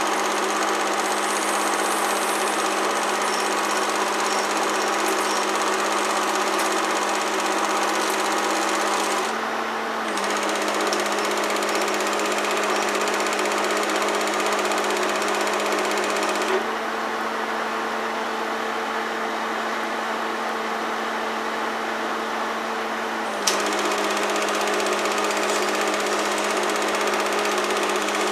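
Home-movie film projector running: a steady mechanical whir and clatter over a constant hum, shifting slightly with a small click a few times.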